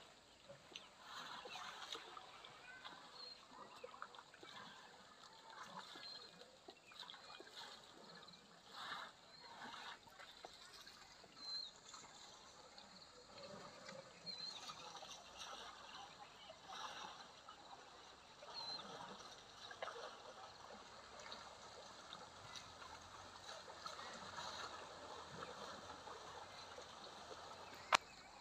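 Asian elephants wading and drinking in a shallow river: faint, irregular splashing and sloshing of water, with a few brief high chirps. A single sharp click near the end.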